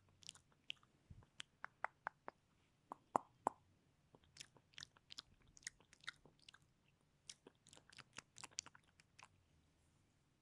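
Close-miked ASMR mouth sounds: a run of quick, irregular clicks, thinning out near the end.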